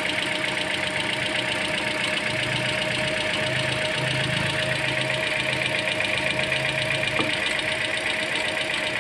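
Toyota Altis four-cylinder engine idling steadily, with a fast, even ticking running through it. The cooling system has just been refilled after running out of coolant and is about to be bled of trapped air.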